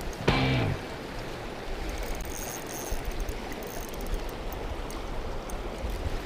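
Steady rush of river water flowing over rocks. A short, loud pitched sound with a falling pitch cuts in about half a second in.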